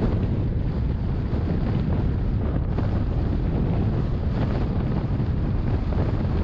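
Steady rumble of a car driving at road speed: tyre and wind noise, strongest in the low end, holding an even level throughout.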